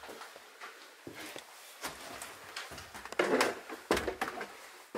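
Footsteps climbing a wooden staircase: a run of irregular thuds and scuffs on the bare treads, thicker in the second half.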